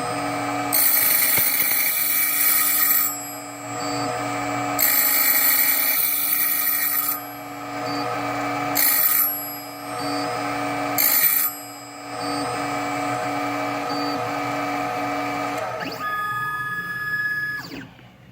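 Automatic key machine's slot-cutting wheel spinning and cutting a slot-type key blank, in several louder cutting passes between quieter stretches of the motor running. Near the end the machine changes to a stepped, rising whine and then stops as the cut finishes.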